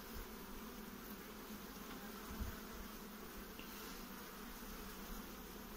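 Honeybees humming steadily around an opened hive and on a lifted brood frame; a low, even buzz.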